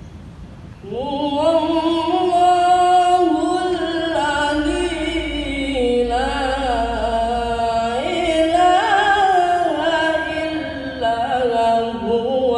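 A young reciter chanting the Qur'an in melodic tilawah style: long held notes with ornamented turns that rise and fall in pitch, in sustained phrases. The recitation begins about a second in.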